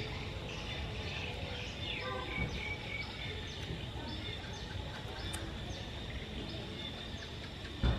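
Small birds chirping over and over in short, falling high notes, over a steady outdoor background noise; a single thump just before the end.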